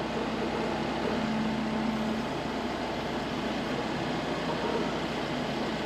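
Tractor engine running steadily, with a low steady tone that drops away about two seconds in.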